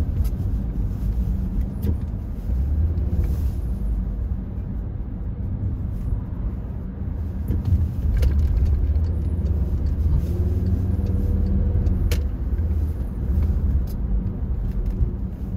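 Road and engine noise heard inside a moving car: a steady low rumble, with a couple of sharp clicks about eight and twelve seconds in.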